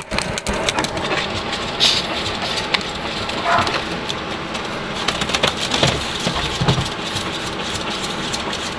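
Pet grooming blower running steadily: a rush of air over a steady motor hum, with scattered light clicks.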